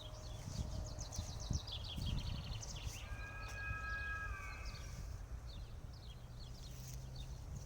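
Small birds chirping and trilling, many short calls overlapping. A steady held tone of several pitches sounds for about a second and a half near the middle, over a low rumble with a few soft thumps.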